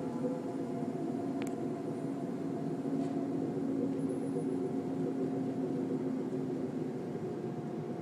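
A low, steady droning hum in the sky, several held tones over a noisy rumble: the kind of 'strange sky sound' heard as a trumpet-like blare. A single sharp click about a second and a half in.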